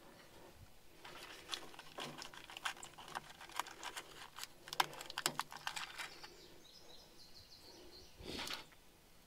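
Small sharp clicks and rattles of new 20-amp fuses being handled and pushed into a bulldozer's fuse block, a quick flurry lasting about five seconds, then a short rustle near the end. Birds chirp faintly in the background.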